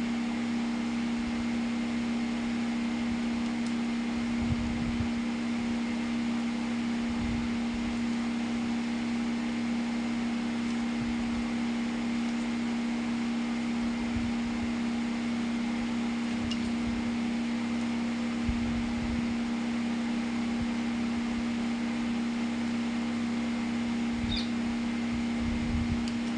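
Small 12V DC motor running steadily, a constant two-tone hum, with a few soft low thumps along the way.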